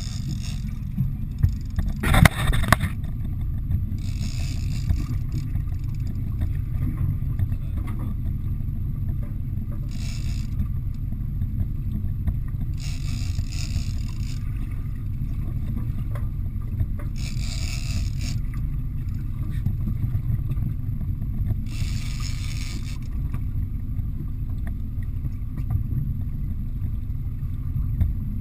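Steady low rumble of a small fishing boat at sea. Short hissing bursts of about a second come every few seconds, with a brief clatter about two seconds in.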